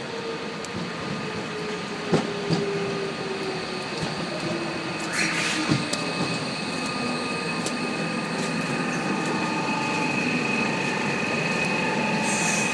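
Docklands Light Railway train pulling into the platform and slowing to a stop: its motor whine falls steadily in pitch over the first six seconds, with a short rising squeal about five seconds in. Once it stands there is an even high electrical whine, and a brief hiss near the end.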